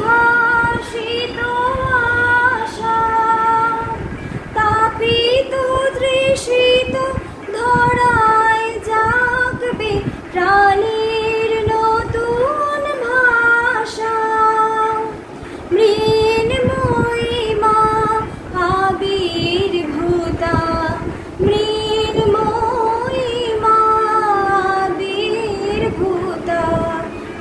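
A woman singing a Bengali song, a flowing melody of long held notes that glide and waver in pitch.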